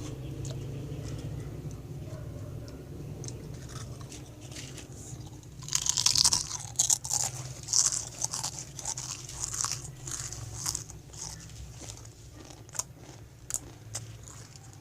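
Someone biting and chewing a crunchy snack close to the microphone: loud, irregular crunches begin about six seconds in, come thick for a few seconds, then thin out to occasional crunches.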